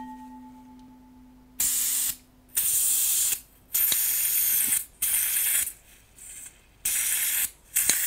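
Butane refill canister pressed onto a gas soldering iron's fill valve, hissing in about six short bursts as gas sprays out instead of filling: the nozzle isn't sealing, and an adapter is needed. A metallic ring fades out at the start.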